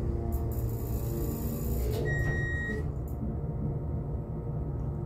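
Steady low hum of an MEI hydraulic elevator's pump motor, heard inside the car during a ride up. A single short beep sounds about two seconds in, and the higher background hiss cuts out soon after.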